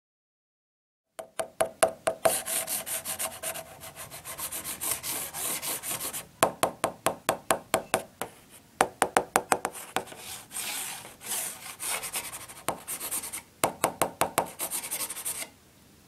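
Small hard balls rolling and knocking on a hard surface: runs of quick clicks and knocks with a rolling rasp between them, starting about a second in and stopping just before the end.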